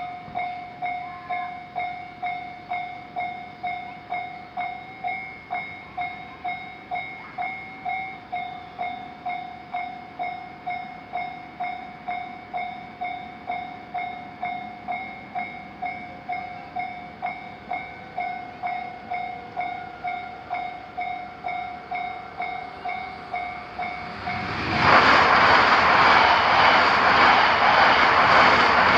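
Japanese railroad crossing warning bell ringing in a steady, rapid rhythm of two-tone electronic strikes. About three-quarters of the way in, a train passes through the crossing, and its loud rumble swamps the bell.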